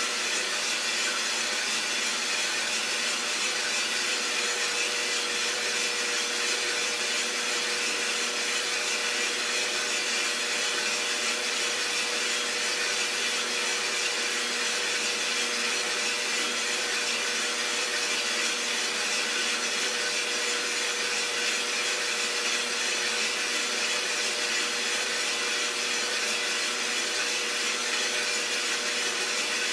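Iroster600 roaster running mid-roast: a steady whirring hiss with a constant hum under it.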